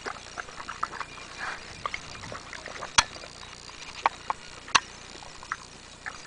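Dog chewing and gnawing on watermelon: irregular crunches and smacks, with a few sharp clicks, the loudest about three seconds in.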